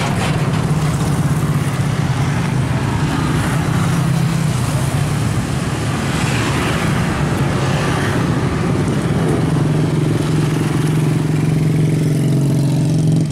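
An engine running steadily nearby: a constant low drone with a hiss over it, unchanging throughout.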